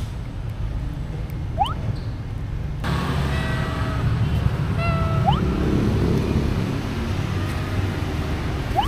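Steady low rumble of traffic, with a few short, high, quickly rising mews from a small stray cat.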